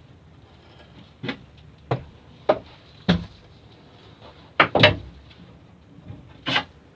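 A series of irregular hard knocks and thumps on a boat, about seven over a few seconds, with two in quick succession a little before the 5-second mark.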